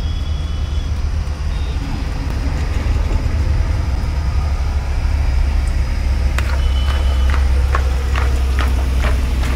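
Low, steady rumble of a vehicle engine running close by, growing a little louder toward the end. From about two-thirds of the way in, a steel spoon clicks and scrapes against a plastic bowl, roughly two to three times a second, as chaat is tossed and mixed.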